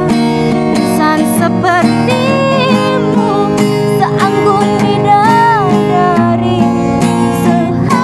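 A woman singing a Malay ballad in a high voice, with quick ornamented turns (cengkok) and vibrato on held notes, over an acoustic guitar.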